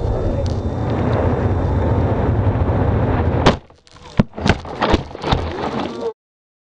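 Wind rushing over the microphone of a camera mounted inside a falling water rocket, then a sharp impact about three and a half seconds in as the rocket hits the ground, followed by several knocks as it tumbles in the grass. The sound cuts off suddenly near the end.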